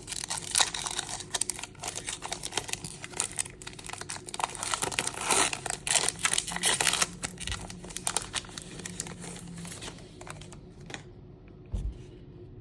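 Foil Pokémon booster pack wrapper crinkling and being torn open, a busy crackle that dies down near the end.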